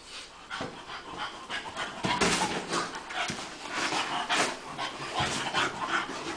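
Bulldog panting in quick, noisy breaths, about three a second, getting louder from about two seconds in.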